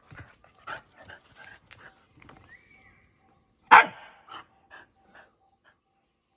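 Two dogs play-fighting, with a string of short barks and one much louder bark a little under four seconds in, followed by a few quieter ones.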